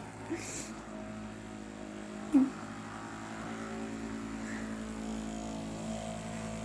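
Electric massager's motor humming steadily, with one short, loud vocal sound a little over two seconds in.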